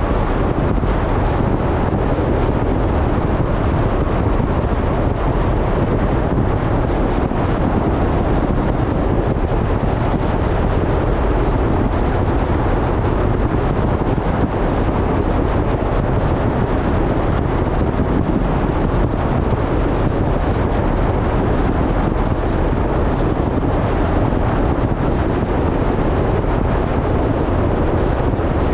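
Steady rush of tyre and wind noise from a car driving, deep and even, with no change in level.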